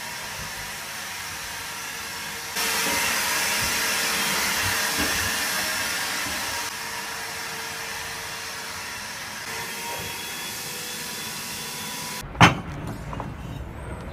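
A loud, steady rushing hiss with a faint hum, getting louder about two and a half seconds in. Near the end it cuts off and a sharp knock follows.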